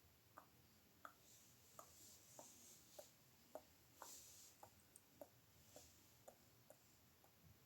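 Close-miked tongue clicks from a person's mouth, repeated about twice a second in an even series of short, hollow pops. A couple of soft, breathy hisses come in between.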